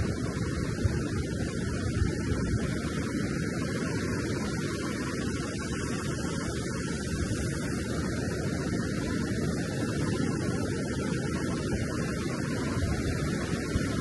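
Ocean surf washing along a sandy shore, a steady low rush with no separate breaks standing out.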